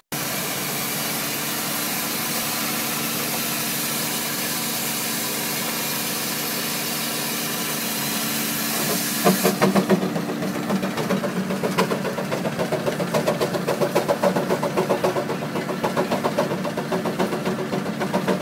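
Case steam traction engine: a steady, loud hiss of escaping steam cuts off about halfway through. It gives way to the engine's regular exhaust chuffs, about three beats a second, as it works.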